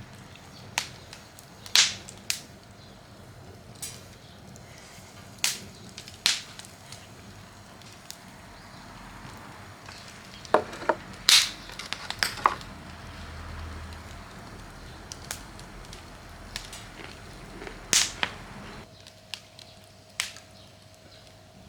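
Wood campfire crackling, with irregular sharp pops and snaps over a low background hiss. Near the end the hiss drops away and a faint steady hum comes in.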